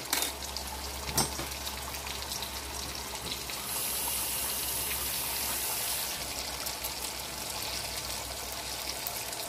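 Salmon croquettes sizzling steadily in oil in a skillet, with a kitchen tap running for about two seconds near the middle. Two knocks sound in the first second or so.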